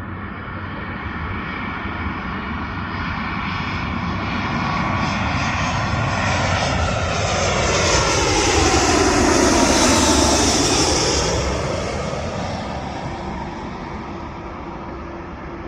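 Airliner on landing approach passing low overhead: its engine noise builds, peaks about two-thirds of the way through with a whine that drops in pitch as it goes by, then fades.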